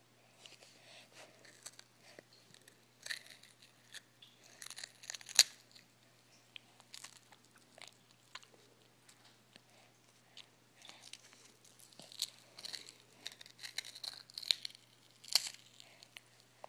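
A baby chewing and gumming a piece of finger food held in her hand: a run of short, wet mouth clicks and smacks in two clusters, the sharpest about five seconds in.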